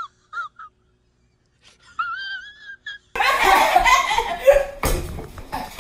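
Two short, high, wavering cries separated by a gap of near silence, then loud laughter from about three seconds in.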